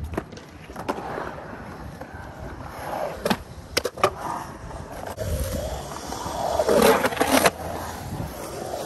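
Skateboard wheels rolling and carving across the concrete walls of a pool bowl, with a few sharp clacks against the pool coping, first as the board drops in and again about four seconds in. The rolling grows loudest near the end as the board carves back through the bowl.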